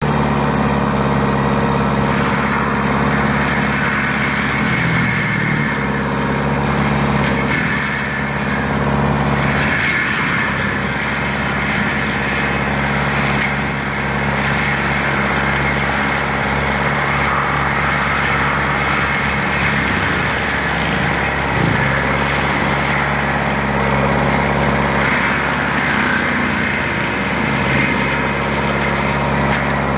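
Lamtrac LTR6125 tracked forestry carrier running under steady load, its Denis Cimaf 180D mulcher head spinning and grinding through standing saplings and brush. The engine note dips briefly about five seconds in and again around twenty seconds, as the head bites into the growth.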